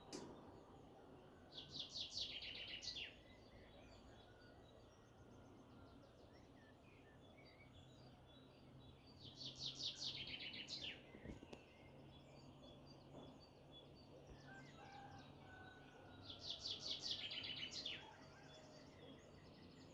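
A songbird singing the same short song three times, about seven seconds apart: each is a fast run of high repeated notes lasting about a second and a half, ending in a few downward strokes. Fainter calls of other birds sound in between.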